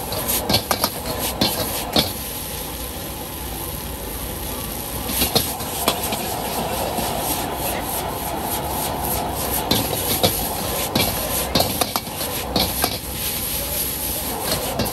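Metal spatula scraping and clanking against a wok as egg noodles are stir-fried and tossed, in irregular clusters of sharp strikes, over the steady roar of the stove's burner flame.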